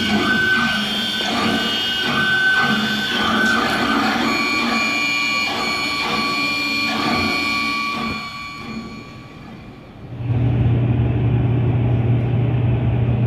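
Staged 3D-printer sound effects played over a hall's PA: machine-like whirring with several steady electronic tones, fading about eight seconds in, then a deep steady drone from about ten seconds in.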